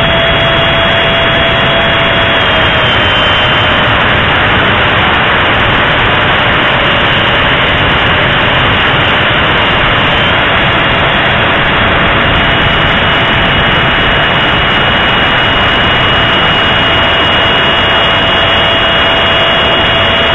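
Onboard sound of a 64 mm electric ducted fan on a radio-controlled T-45 jet model in flight: a steady high fan whine over loud wind rush on the wing-mounted keychain camera's microphone. The whine drops a little in pitch about three seconds in and climbs back around eleven seconds in as the fan slows and speeds up again.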